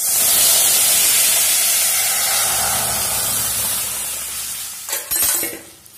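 Boiled moong dal poured into hot mustard-oil tempering of cumin and dried red chillies in a kadai: a sudden loud sizzle that fades over about four seconds as steam rises, then a few knocks of the pot against the pan near the end.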